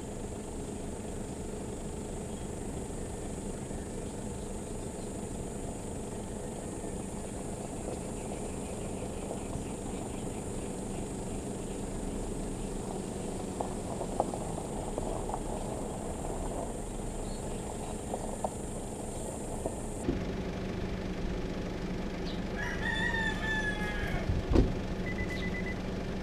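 Rooster crowing a little past 22 seconds in, over a steady low rumble of a car running. A sharp thump comes shortly after the crow.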